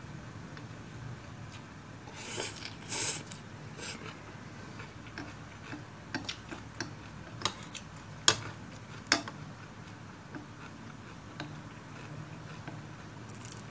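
Wooden chopsticks and a metal spoon stirring rice noodles and knocking against a ceramic bowl. Several short rustling bursts come early, then a run of sharp clicks and clinks, two of them louder past the middle.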